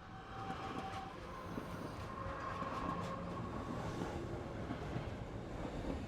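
A train running on rails: a steady rumble with faint high ringing tones. It swells in at the start and fades away near the end.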